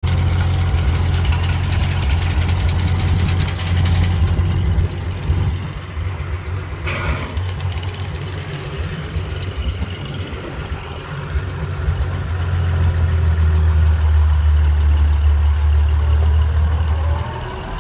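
Farm tractor engine running steadily, easing off a little in the middle and building up again towards the end.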